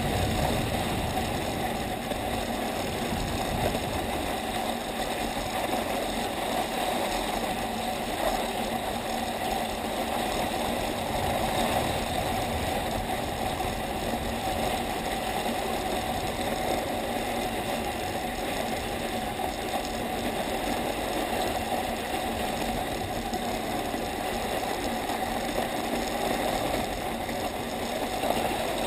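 Steady rumble and hiss of a ski bike's skis sliding over groomed snow while it is towed up a T-bar lift, with a light rattle of the frame.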